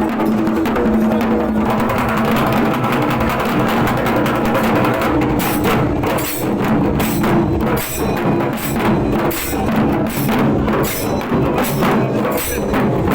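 Music with drums and percussion keeping a steady beat over sustained tones; the beat becomes more prominent about halfway through.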